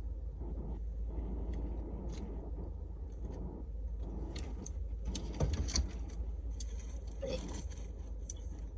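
Steady low rumble of a car idling, heard from inside the cabin, with short rustles and clicks from handling and eating food, loudest about five to seven seconds in.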